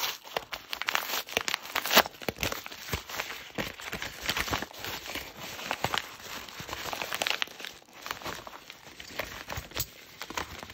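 Packaging of a mail parcel being torn open and crinkled by hand: an irregular run of rustling and crackling, with one sharp crackle about two seconds in.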